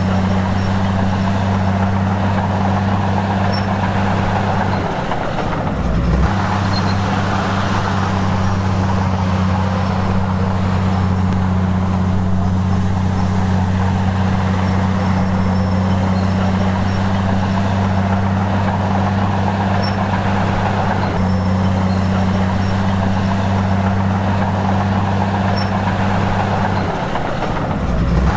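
Heavy diesel earthmoving engine running steadily at constant speed, with a low hum that briefly drops in pitch about five seconds in and again near the end.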